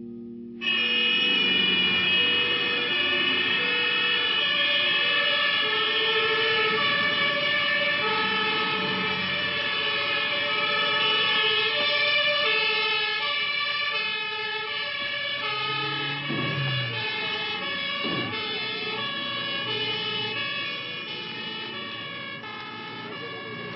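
Fire engine two-tone sirens wailing, the pitch stepping back and forth between two notes. They cut in suddenly about a second in and carry on throughout.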